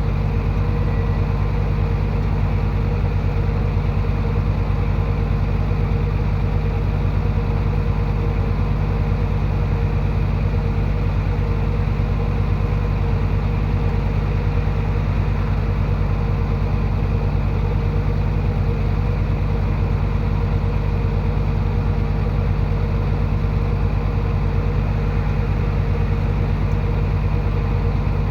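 Diesel engine of heavy earthmoving equipment running steadily at idle, a loud, even rumble with no revving or change in pitch.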